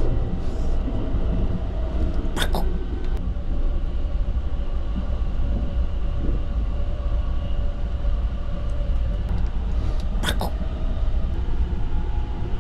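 Steady low running rumble of the Sunrise Seto sleeper train (a 285 series electric train), heard from inside a compartment as it runs on the rails. There are two short sharp clicks, about two and a half seconds in and near ten seconds in.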